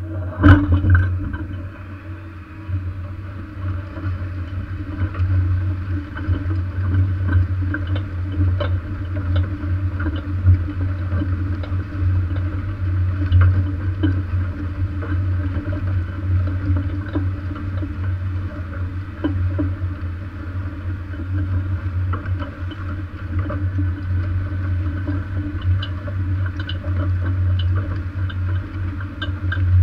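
Lemken VarioPack furrow press rolling over freshly ploughed soil behind a tractor-drawn plough: a steady low rumble with scattered metallic clicks and knocks from the press rings. One loud knock comes about half a second in.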